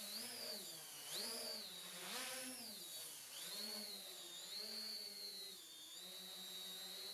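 Multi-rotor drone's electric motors and propellers whining in flight, the pitch rising and falling several times as the controls are worked aggressively.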